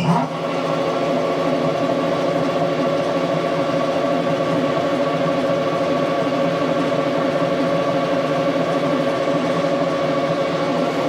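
Metal lathe switched on and running steadily under its own power, a constant geared hum with several steady tones.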